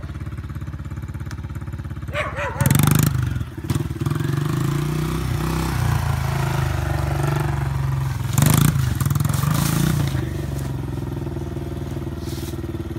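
Honda CRF70 pit bike's small single-cylinder four-stroke engine running and being ridden, with the pitch wavering as the throttle is worked. Two short, loud bursts come about three seconds in and again after about eight seconds.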